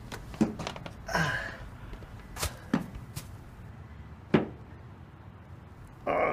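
Scattered sharp knocks and thuds, with a few short strained grunts or heavy breaths from a man.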